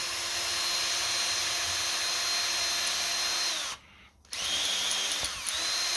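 Electric drill with a sharp bit drilling a 1/8-inch bleed hole through a car engine thermostat, a steady high whine. A little under four seconds in the drill winds down and stops for a moment, then runs again, briefly at a lower pitch before coming back up to full speed near the end.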